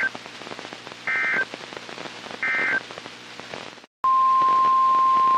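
NOAA Weather Radio broadcast over static hiss: short warbling two-tone data bursts of the EAS/SAME end-of-message code, repeated about 1.3 s apart, marking the end of a severe thunderstorm warning. After a brief silent cut about four seconds in, the steady 1050 Hz weather radio alert tone starts, louder than the bursts, announcing the next warning.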